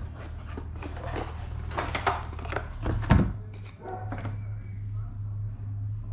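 Rustling and clicking of things being handled, with a loud thunk about three seconds in, over a steady low hum.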